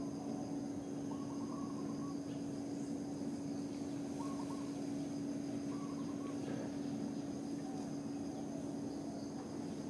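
Forest ambience: a constant high insect drone over a steady low hum, with three short warbling bird calls about one, four and six seconds in.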